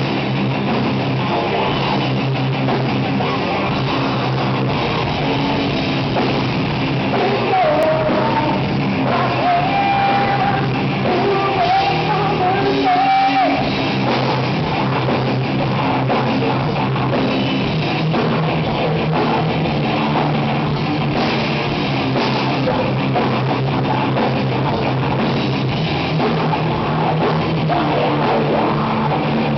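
A heavy metal band playing live at a sound check: distorted electric guitars and a drum kit, with singing over them.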